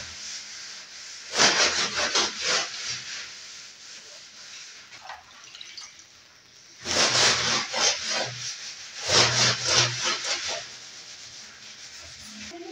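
A cloth rubbed back and forth over the wooden slats of a table shelf, in three bursts of scrubbing with short pauses between.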